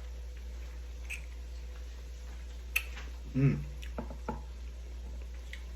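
Someone eating juicy pineapple: wet mouth sounds and a few sharp lip or tongue clicks, with a short hummed "mm" about three and a half seconds in, over a steady low hum.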